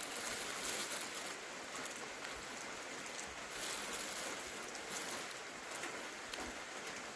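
Steady rain falling: an even hiss of water noise.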